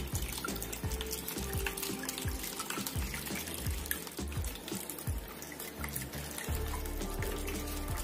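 Water trickling and splashing from the spouts of a small tabletop fountain into its basins, with music playing.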